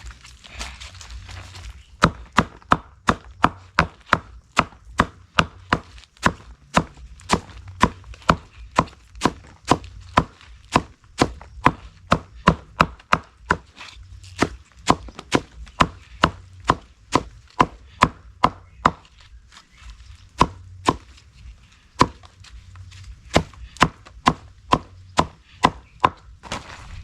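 Steady chopping with a blade: sharp, evenly spaced knocks at about two to three a second, with a pause of a few seconds near two-thirds through before the strokes resume.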